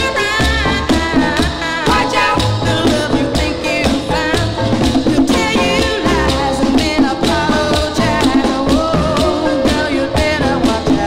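Recorded oldies song in the popcorn style playing: a full band with a steady percussion beat and melody lines, and no words made out.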